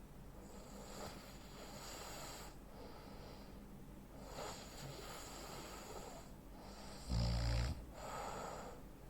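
A sleeping man breathing heavily in his sleep: a few noisy breaths, then one short, loud, deep snore about seven seconds in, followed by another breath out.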